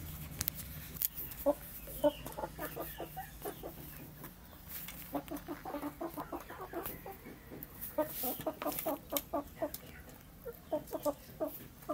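Chickens (a rooster and two hens) clucking as they feed, in runs of quick short notes several a second, with a few sharp clicks between them.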